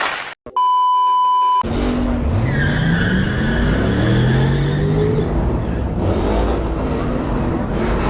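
A censor bleep, a flat steady tone about a second long that cuts off abruptly. Then a car's engine revs up, rising in pitch, while its tyres squeal under wheelspin in a burnout.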